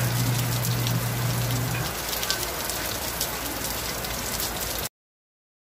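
Heavy rain pouring onto a flooded concrete yard: a steady hiss with the patter of many drops. A low steady hum runs under it for about the first two seconds, and the sound cuts off suddenly about five seconds in.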